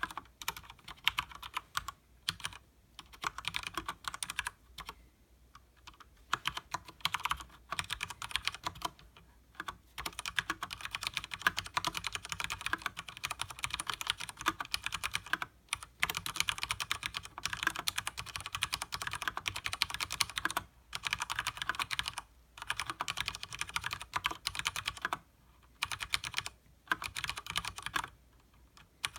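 Typing on a Leopold FC900R mechanical keyboard with Cherry MX Speed Silver linear switches and double-shot PBT keycaps: fast runs of key clacks, broken by a few short pauses.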